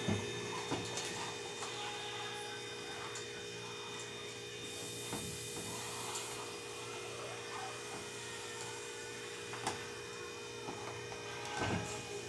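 A steady electrical hum, with faint cloth rubbing as a pot lid is wiped by hand, a sharp click about ten seconds in and a soft knock near the end.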